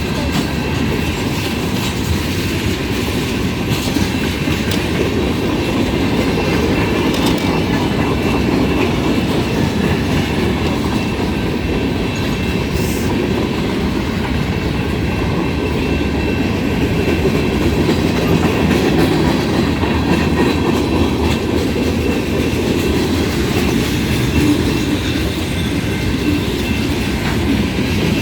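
CSX freight train's cars rolling past close by: a loud, steady rumble and clatter of wheels on the rails, with faint high steady tones over it.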